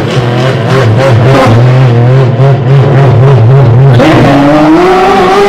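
Racing car engines in a pit lane: an engine runs loud and unsteady at low revs, then about four seconds in an engine revs up with a steadily rising pitch as a car accelerates.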